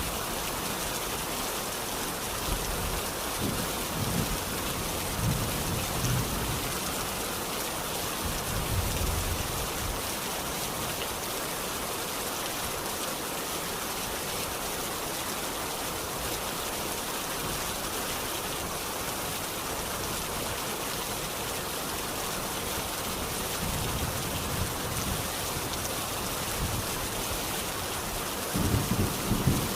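Steady rain falling, a dense even hiss of drops, with a few brief low rumbles a few seconds in and again near the end.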